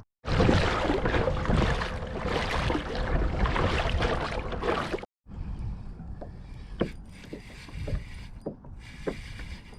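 Kayak on open water: steady water and wind noise against the hull and microphone. After a cut about five seconds in, it gives way to a quieter stretch of scattered light clicks and knocks.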